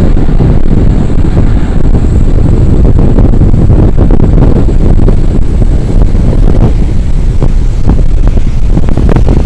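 Boeing 757-200's twin jet engines at takeoff power: a very loud, steady rumble with a faint high whine above it, mixed with wind buffeting the microphone.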